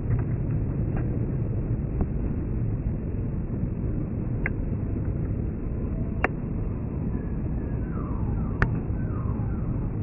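Jet aircraft's low, steady rumble, with a few sharp clicks and faint falling whistles in the last few seconds.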